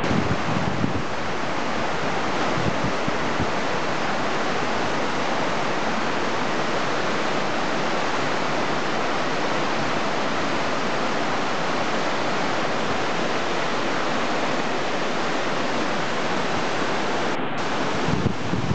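Mountain river in muddy spate from snowmelt, rushing as a steady, even roar of turbulent water over rocks.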